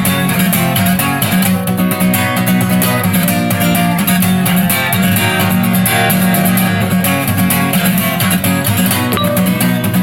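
Guitar playing an instrumental passage, steady and continuous, with no singing.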